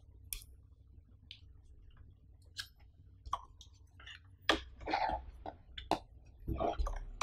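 A few light clicks from laptop keys being pressed, then handling noise as a slim power bank with its cable is picked up and set down on cardboard: a cluster of knocks and rustling from about four and a half seconds in.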